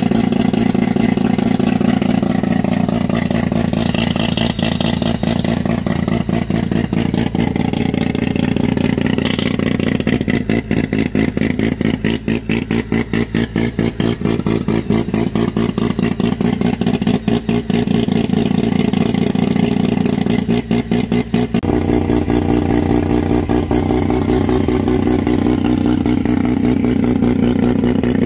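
Turbocharged 13B half-bridgeport Mazda rotary engine idling on its first start-up on a new Fitech EFI setup. The idle is uneven and stuttering through the middle stretch and steadier in the last several seconds.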